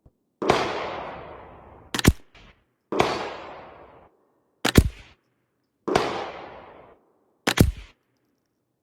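Three .22 LR rifle shots from a Weatherby XXII, about three seconds apart, each with a ringing echo that dies away over about a second. After each shot comes a sharp double clack, the action being worked by hand in single-shot mode.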